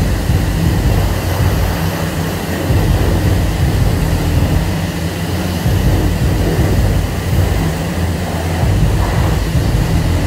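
High-pressure car wash wand spraying water onto a car: a steady hiss over a heavy low rumble, unbroken throughout.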